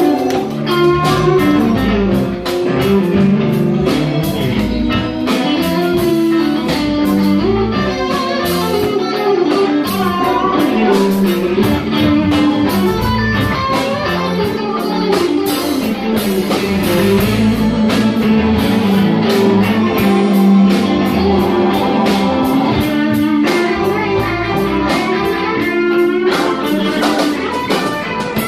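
Live band jamming, a guitar leading over a steady drum beat.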